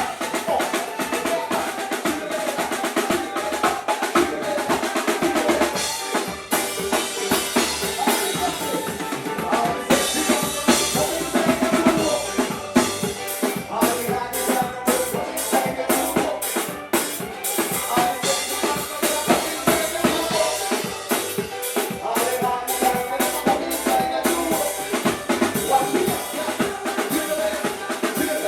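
A live band playing at a sound check, led by a drum kit with busy snare, rimshot and bass-drum hits over other pitched instruments. The playing is continuous, with no breaks.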